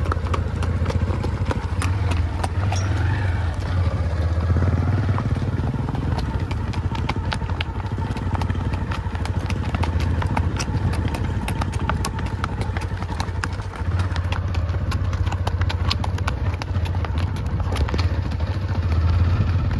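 Hoofbeats of two ridden horses, a grey mare and a bay, moving at a brisk gait on a dirt track: a quick, continuous run of hoof strikes. A steady low rumble runs underneath.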